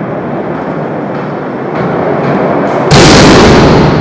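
A low rumble that swells steadily, then breaks into a sudden, very loud crash about three seconds in that holds for about a second before fading.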